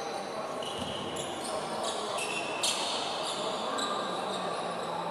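A basketball being dribbled on a hardwood court, with many short, high-pitched sneaker squeaks. It all echoes in a large sports hall, over faint voices.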